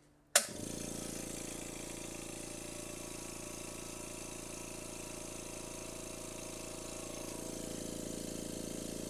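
California Air Tools 1P1060S light and quiet air compressor switched on with a click about a third of a second in, then its motor and pump running with a steady, even hum. It runs quietly.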